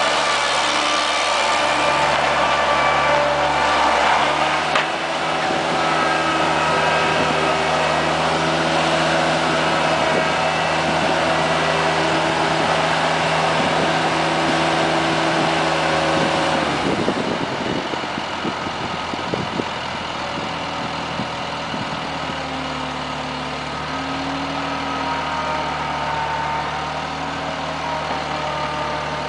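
Bobcat skid steer's engine running steadily, then settling to a quieter, lower run about two-thirds of the way through.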